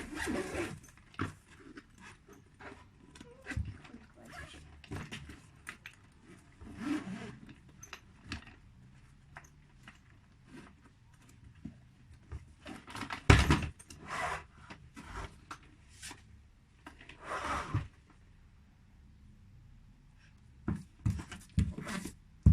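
A suitcase zipper being pulled open, with scrapes, clicks and knocks as the suitcase is handled and opened. A louder knock comes about 13 seconds in.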